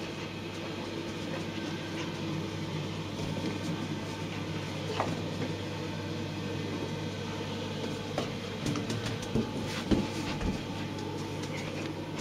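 A pink rubber balloon bumping and rubbing as a small dog noses and pushes it along the carpet and wall, giving scattered taps and knocks, over a steady low hum. There is a short squeak about five seconds in, and the sharpest knocks come near ten seconds.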